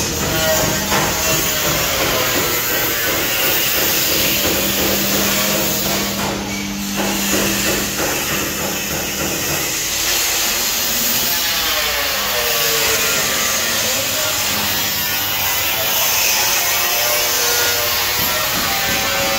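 A power tool working steel in a metal fabrication shop: a continuous loud, harsh grinding noise whose pitch wavers, dipping and rising as the tool is loaded.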